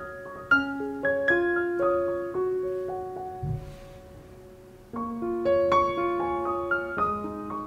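Background piano music: a gentle melody of single notes and chords that fades almost away about three and a half seconds in and picks up again about five seconds in.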